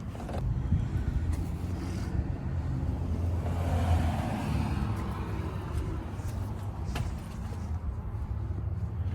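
A steady low motor hum, with the rush of a vehicle passing that swells and fades about four seconds in, and a couple of sharp knocks.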